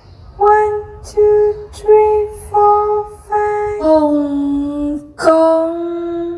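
A high female voice singing a simple sing-song tune: five short notes, then a held lower note and a final long note.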